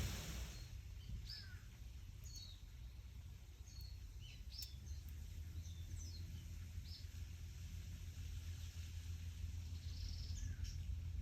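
Small birds chirping in short, scattered calls, over a low steady rumble. A rush of wind through leaves fades out in the first second.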